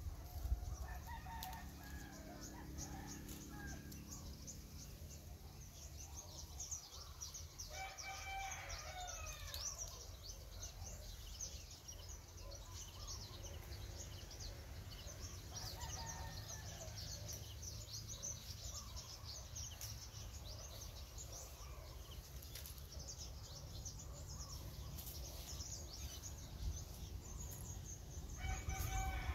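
Rooster crowing about four times, several seconds apart, each crow lasting a second or two. Dense high-pitched chirping and a low rumble run underneath.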